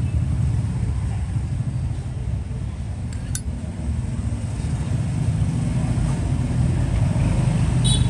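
Steady low rumble of road traffic, with one sharp click about three seconds in and a few light metallic ticks near the end.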